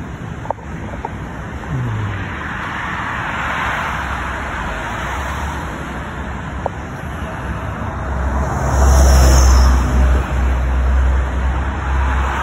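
Freeway traffic going by: a steady road-noise haze that swells as a car passes, then a heavier, louder rumble from about eight seconds in as a vehicle passes close.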